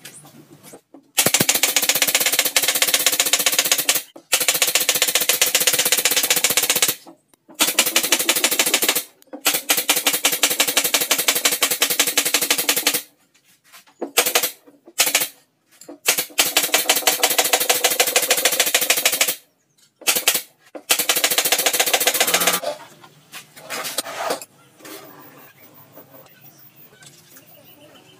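Rapid mechanical chattering from pneumatic nailing equipment. It comes in several long bursts of a few seconds each, breaking off abruptly between them, and stops a little over 20 seconds in.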